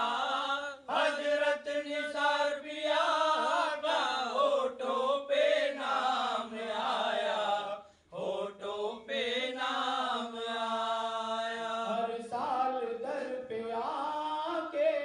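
Two men singing a devotional song in chant style, with long held, wavering notes; the singing breaks off briefly about halfway through, then resumes.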